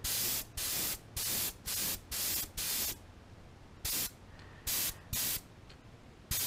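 Airbrush spraying paint onto a crankbait in short hissing bursts: about two a second for the first three seconds, then a few more spaced further apart.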